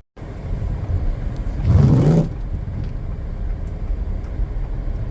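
Ford Edge SUV on the move, its steady low engine and road rumble heard from inside the cabin, starting after an abrupt cut. About two seconds in, a brief louder sound rises above the rumble.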